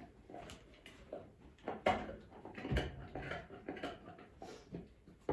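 Scattered light taps, knocks and rustling as a large dog is handled and shifts about, with one low thump a little under three seconds in.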